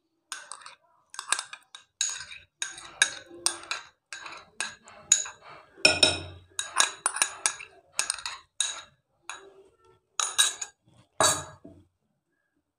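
Silicone spatula scraping and tapping mango puree out of a container into a glass bowl: a run of short, irregular clinks and scrapes with soft plops of puree, stopping about a second before the end.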